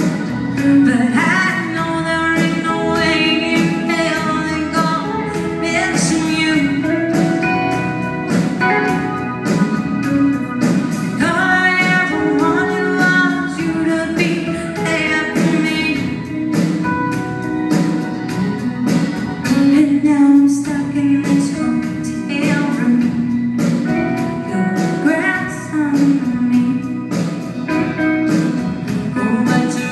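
Live band playing a song: a woman sings lead over acoustic and electric guitars, keyboard and drums, with a steady beat.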